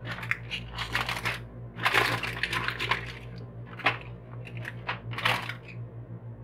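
Aluminium foil crinkling and crackling in irregular bursts as it is pressed and crimped around the rim of a pot to seal it against escaping steam.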